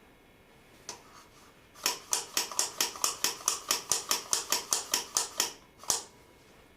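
A run of sharp mechanical clicks, evenly spaced at about four or five a second for nearly four seconds, with a single click just before and another just after.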